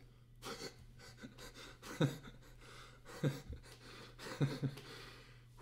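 A man stifling laughter: a few short breathy chuckles and exhalations, roughly a second apart, some falling in pitch.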